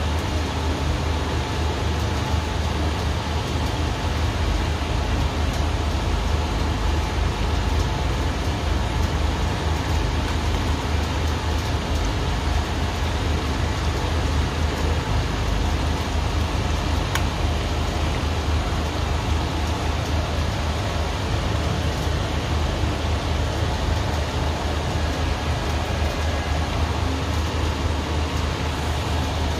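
Food sizzling in a hot frying pan: a steady hiss with faint scattered crackles, over a steady low hum.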